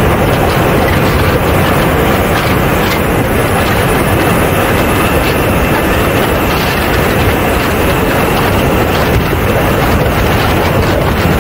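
Radio-controlled model A-10 jet in flight, heard from a camera under its fuselage: a steady rush of engine noise and airflow, with a faint steady high whine.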